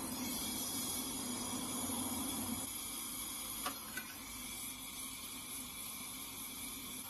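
Gas brazing torch flame hissing steadily while a steel refrigerant pipe joint on a freezer is brazed with flux and filler rod. A lower hum under the hiss drops away about two and a half seconds in, and there is a single tick a little later.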